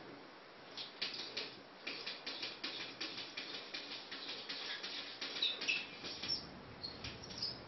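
Maine Coon kitten's paws and claws tapping and scratching rapidly and irregularly on a mirror's glass, with a few short high squeaks in the second half.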